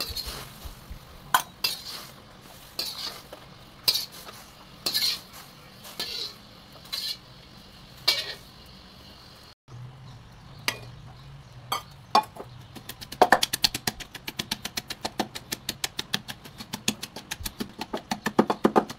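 A metal spatula scraping and tossing fried chillies and garlic around a steel wok, one stroke about every second. After a short break and a few clinks, a pestle pounds the chillies in a stone mortar in a fast, steady rhythm of several strikes a second.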